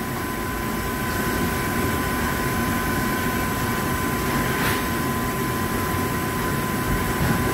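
Traub TNL-26 CNC Swiss-type lathe running through a single-point threading cycle on the main spindle: a steady machine hum with a constant high-pitched whine, and a brief hiss about two-thirds of the way through.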